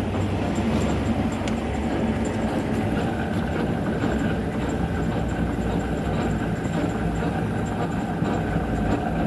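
Metal lathe running steadily, a dense rattling mechanical rumble with faint ticks.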